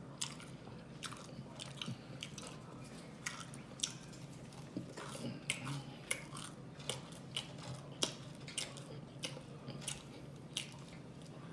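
A person chewing and biting food: irregular wet clicks and small crunches from the mouth, several a second.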